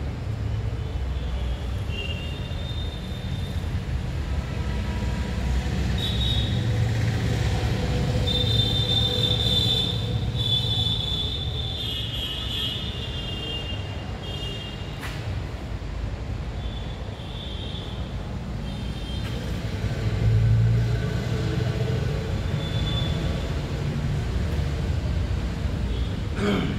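Steady low mechanical rumble, with high squealing tones coming and going through the middle stretch.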